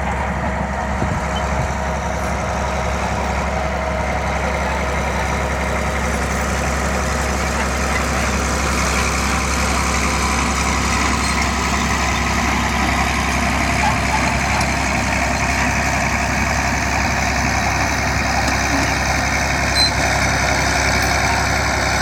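Crawler bulldozer's heavy diesel engine running steadily, growing slightly louder over the stretch.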